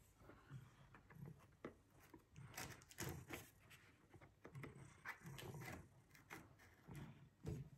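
Faint, scattered clicks and scrapes of scissors and fingers working at the edge of a cardboard box, cutting it open.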